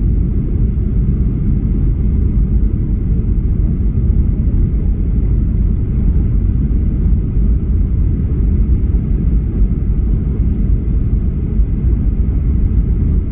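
Steady low rumble of cabin noise inside a Boeing 737-800 descending on approach to land: engine and airflow noise heard from a window seat over the wing.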